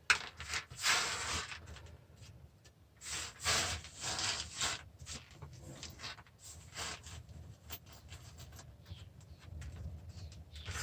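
Parts of a stripped-down DVD player being handled and worked on: irregular scraping and rubbing noises, the longest about a second in and again from about three to five seconds in, with scattered small clicks and knocks.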